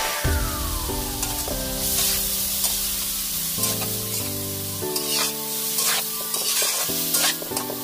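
Carrots and green beans sizzling as they are stir-fried in a metal wok, with a metal spatula scraping and clinking against the pan several times. Background music plays underneath.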